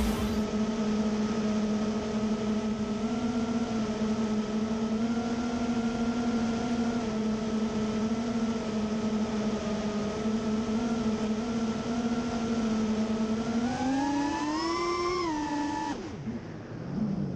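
FPV racing quadcopter's motors and propellers humming at a steady pitch, then rising in pitch shortly before the end and dropping away abruptly.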